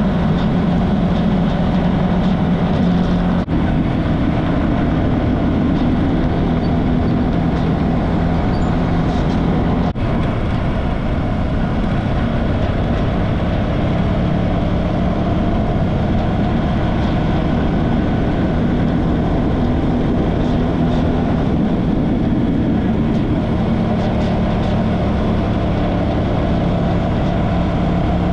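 Motorcycle engine running steadily while riding. It is a constant low hum under an even rush of road noise, and it drops out for an instant twice.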